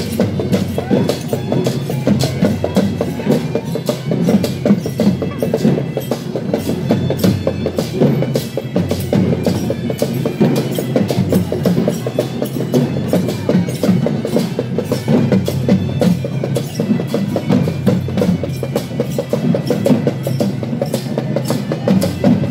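Fast, loud procession drumming with a steady beat, the percussion of a Sri Lankan perahera accompanying costumed dancers.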